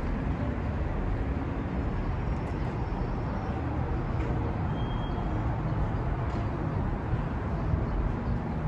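Steady, low rumble of city street traffic, even throughout with no distinct events.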